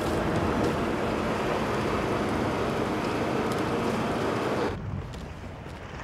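Steady noise of a fishing boat at sea, its engine running under wind and water noise. About three-quarters of the way through it drops suddenly to a quieter sea-and-wind sound.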